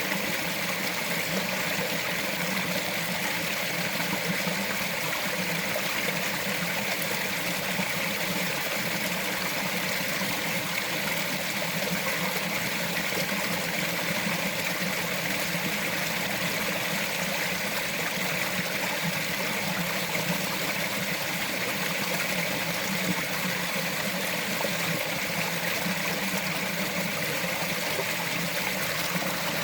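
Small mountain forest stream flowing and trickling over rocks, a steady, even babble of water with no change in level.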